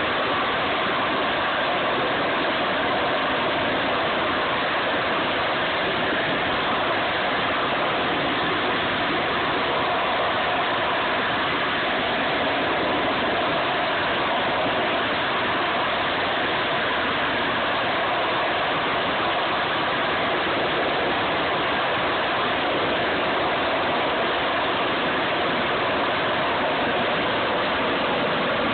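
Harrier jump jet's Rolls-Royce Pegasus turbofan held at hover power: a loud, steady jet noise with no change in level.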